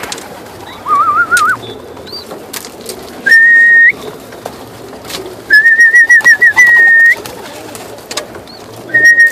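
A person whistling a series of short calls: a warbling phrase about a second in, then high held notes with trills around three, five and nine seconds in, as a pigeon flyer calls his pigeons in. Pigeons coo softly underneath.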